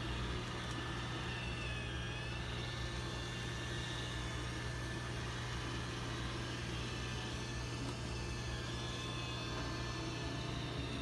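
iRobot Roomba 900-series robot vacuum running, a steady whir from its motor and brushes over a constant low hum.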